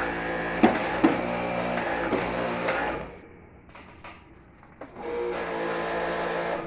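A pressure washer's electric motor runs steadily with a pitched hum and two sharp clicks about a second in. It cuts off about three seconds in and starts again about two seconds later, as the spray is stopped and restarted while the air conditioner is being washed.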